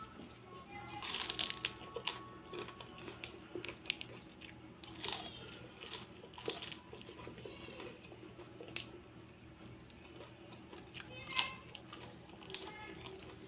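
Irregular sharp clicks and crinkly rustling, with two louder clicks about nine and eleven and a half seconds in.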